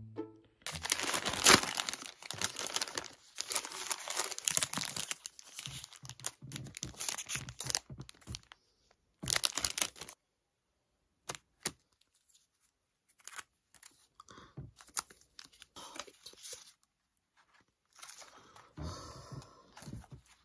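Thin plastic wrapping and clear sleeves crinkling and tearing as packaged items and photocards are handled and opened, in dense bursts for the first half. A stretch of scattered small clicks and taps follows in the middle, and the crinkling picks up again near the end.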